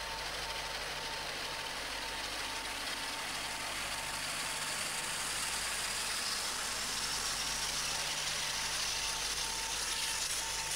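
British Rail Class 47 diesel-electric locomotive with its Sulzer twin-bank twelve-cylinder engine, running steadily under power as it pulls its train away. A high whine rises slowly in pitch through the second half.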